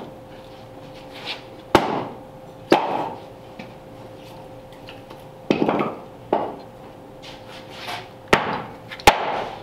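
About six sharp knocks of a hand tool striking wood, at irregular intervals and each with a short echo. A faint steady hum runs underneath.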